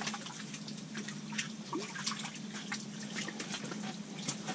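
Bacon sizzling in a skillet on top of a portable propane heater, with irregular crackles and pops of grease over a steady hiss. A steady low hum runs underneath.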